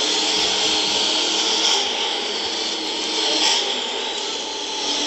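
Monster truck engine noise, steady and dense, picked up from the arena stands by a phone microphone with little bass. The level dips slightly near the end.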